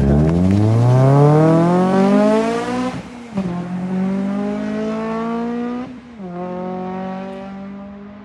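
Honda Civic flying by at full throttle. Its engine note climbs hard, drops at upshifts about three and six seconds in, then fades as the car pulls away.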